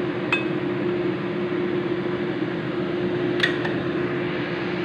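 A metal spatula clinks twice on a plate or pan, once just after the start and once about three and a half seconds in, while eggs are served. A steady, loud kitchen hum runs underneath.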